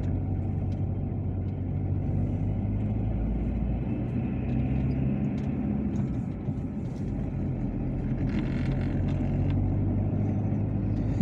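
Car engine running steadily under load as the car climbs a road, heard from inside the cabin as a low hum over tyre and road noise. There is a brief rise in hiss about eight seconds in.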